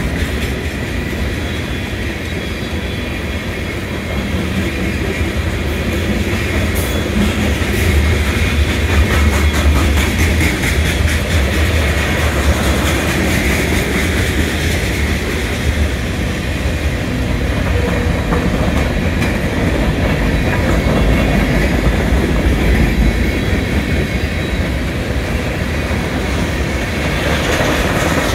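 Cars of a Norfolk Southern manifest freight train rolling past: steel wheels running on the rails in a steady, deep rumble, with faint rapid clicking from the wheels for a few seconds near the middle.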